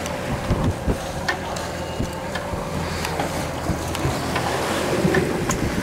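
A boat engine's steady hum under wind buffeting the microphone and the wash of the sea, with a few sharp knocks of handling.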